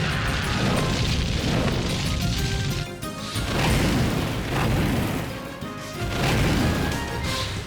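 Action cartoon score playing under booming, crashing sound effects that swell three times: near the start, about halfway through, and near the end.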